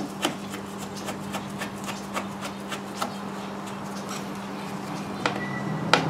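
Light irregular clicks and rubbing from hands turning and seating a plastic idle adjustment knob on a 1985 15 hp Johnson outboard, with a sharper click near the end, over a steady low hum.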